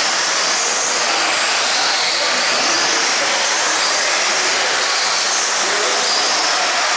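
Several 2WD RC off-road buggies racing on an indoor dirt track. There is a steady hiss of tyres and running gear, with the high whine of their electric motors rising and falling.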